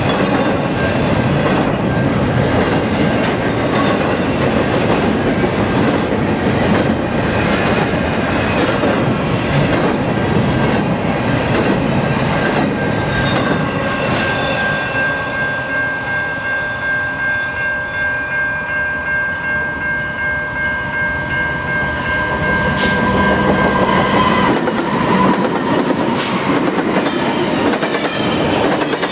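Freight cars rolling past close by, double-stack container well cars and then covered grain hoppers, their steel wheels rumbling and clacking over the rail joints. For about ten seconds in the middle, a steady high-pitched tone rings over the rumble.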